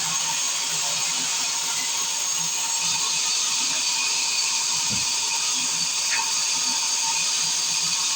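Sawmill circular saw running steadily, a high-pitched whine over a loud hiss, with a short low thump about five seconds in.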